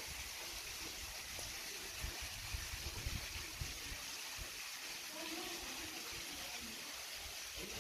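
Steady hiss of running water from a pond fountain, with faint voices of people in the distance.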